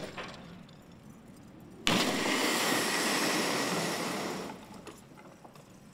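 An MD-500 helicopter, its underside fitted with a Kevlar honeycomb energy absorber, hitting the ground in a crash test. A sudden loud impact about two seconds in is followed by about two and a half seconds of noise that fades away.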